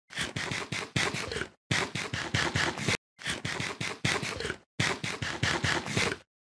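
Eating at a table: quick clicks and scrapes of a fork on a plastic takeaway tray with wrapper rustling, in about five short stretches broken by sudden dead silences.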